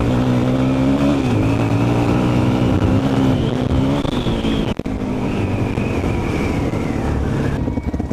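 2003 Suzuki DR-Z400E's single-cylinder four-stroke engine running under throttle while riding, its pitch rising and falling a little with the throttle. The sound briefly drops out just before five seconds in, then the engine carries on.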